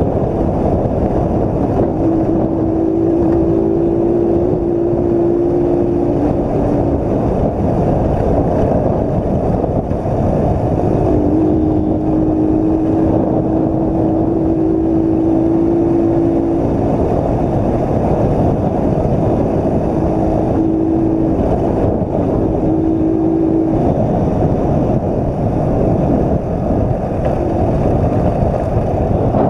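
Honda CG Titan 125's single-cylinder four-stroke engine running at a steady cruising speed, with wind buffeting the camera microphone. The engine's steady note fades in and out a few times under the rush of wind and road noise.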